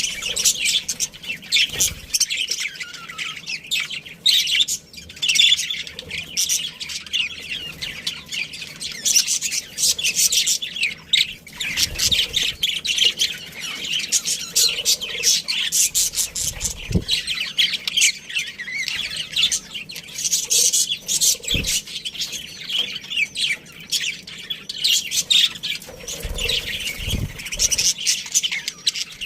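A colony of budgerigars chattering, a dense, unbroken mix of many quick chirps and squawks.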